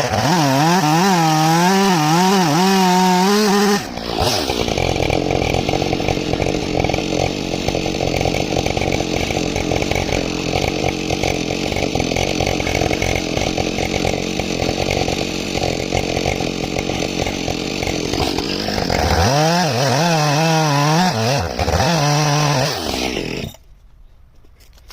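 Husqvarna 572XP two-stroke chainsaw with a 28-inch bar at full throttle. It revs freely for about four seconds, then settles into a lower, rougher, steady load as the chain rips lengthwise through a red oak log for about fifteen seconds. It revs freely again and cuts off suddenly near the end.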